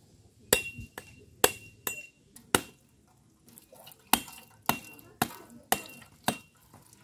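A machete blade striking a coconut held in the hand to crack the shell open. About ten sharp knocks, each with a short metallic ring, come at roughly two a second in two runs, with a pause near the middle.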